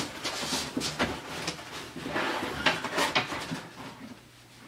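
A roll of craft foam being handled and set aside: a run of scraping rustles and light knocks that die away near the end.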